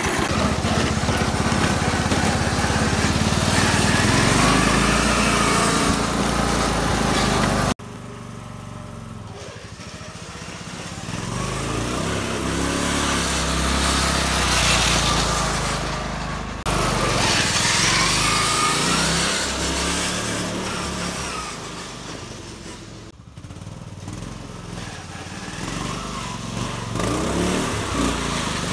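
John Deere L100 riding lawn mower engine running hard with its governor removed as the mower is driven fast in fourth gear. It is loud and steady close up for the first eight seconds. After a cut it sounds further off, swelling and fading with rising and falling pitch as the mower comes and goes.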